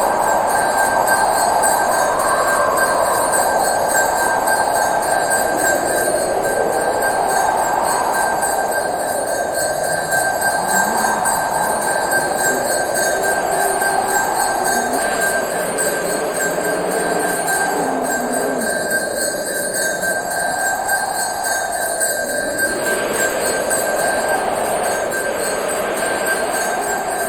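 Pooja bell (ghanti) rung continuously: a steady, unbroken ringing whose tone swells and wavers up and down every few seconds.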